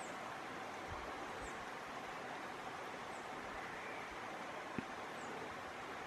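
Bush ambience: a steady hiss of wind and rustling leaves, with a faint, very high chirp repeating every second or two. A single sharp click comes about five seconds in.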